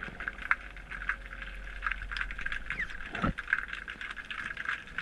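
Underwater reef ambience heard through the camera: a dense, steady crackle of small clicks, with one short falling sweep about three seconds in.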